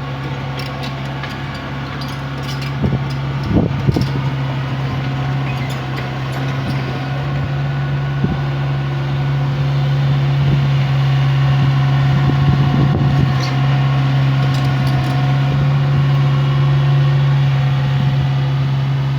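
Small excavator's diesel engine running steadily, with a few sharp knocks and crunches of demolition work, the loudest about three to four seconds in. The engine grows louder about ten seconds in.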